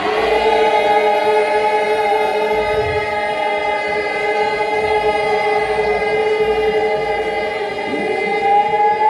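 Many voices singing together, holding one long chord without a break for about nine seconds.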